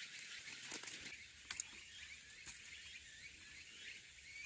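Faint light clicks and rustling as bamboo strips and tie wire are handled for an oven frame, over a steady high outdoor hiss with a few faint chirps.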